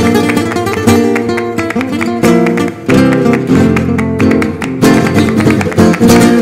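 Flamenco music on acoustic guitar, with sharp strummed chords recurring between plucked notes.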